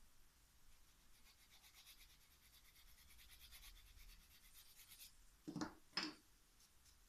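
Faint quick strokes of a nail file rubbing across a fingernail, then two short knocks about half a second apart near the end.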